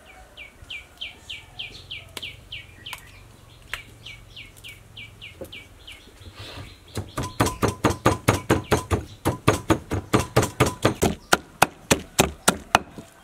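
A bird calls repeatedly with quick, falling chirps. About seven seconds in, a wooden pestle starts pounding chilies and garlic in a clay mortar, sharp knocks at about four strokes a second, louder than the chirps.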